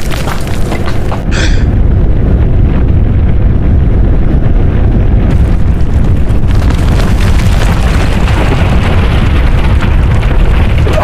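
A loud, sustained explosion sound effect rumbling without a break, with a short hiss about a second in.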